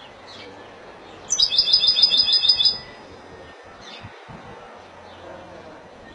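European goldfinch of the Spanish 'Málaga' song type singing: one fast run of rapidly repeated high notes lasting about a second and a half, starting a little after a second in, with a few faint short chirps before and after.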